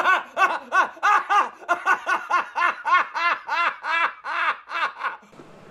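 A man laughing hard: a long unbroken run of high-pitched "ha" pulses, about three a second, each rising and falling in pitch, stopping about five seconds in.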